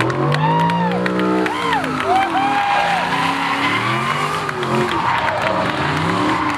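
Drift car engine revving hard, its pitch rising and falling with the throttle, while the tyres squeal in a sideways slide; a high, wavering squeal stands out in the first couple of seconds.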